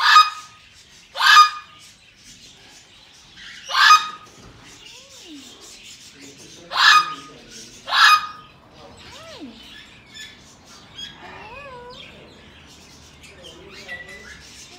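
Green-cheeked conure squawking: five loud, harsh, short calls, the first two about a second apart and the last two close together about eight seconds in, followed by quieter wavering, gliding sounds.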